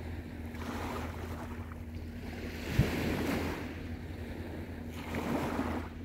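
Small sea waves washing up on a beach, one swell building and fading over the first half and a shorter one near the end, with a brief low thump near the middle that is the loudest moment.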